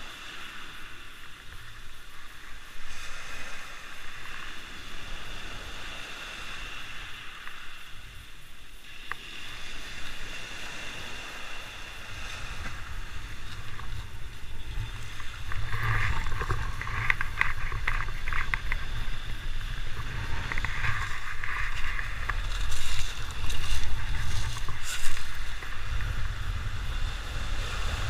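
Footsteps crunching over a beach of loose pebbles, with wind rumbling on the microphone that grows stronger from about halfway through.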